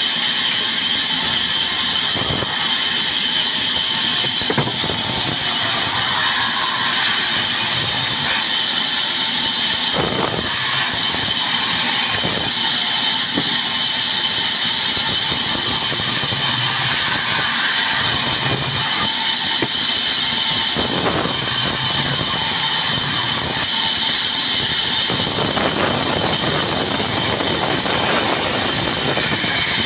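Sawmill band saw running with a steady high whine while its blade cuts through a raw log fed by hand, the cutting noise swelling now and then, most strongly near the end.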